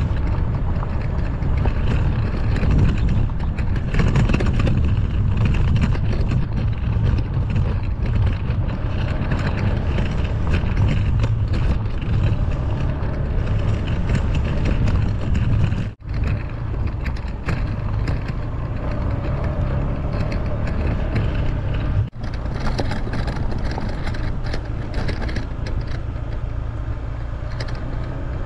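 Honda ADV150 scooter's 150 cc single-cylinder engine running as it rides along a rough dirt track, with tyre noise on the gravel. The sound drops out briefly twice, about halfway through and again a few seconds later.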